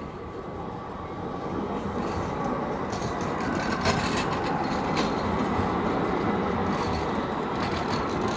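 Tram passing close by. Its running noise grows louder over the first three seconds, then stays loud with clicking and rattling from the wheels on the rails.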